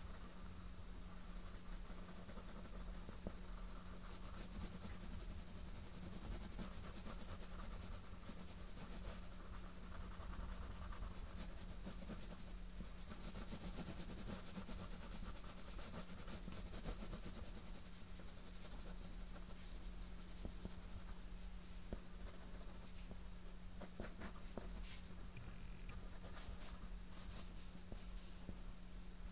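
Pencil scratching on drawing paper in quick repeated shading and sketching strokes, over a faint steady low hum.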